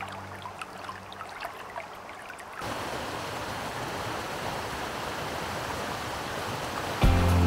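Faint gentle water sounds, then, about two and a half seconds in, the steady rush of river water pouring over shallow rocky rapids. Music comes in near the end.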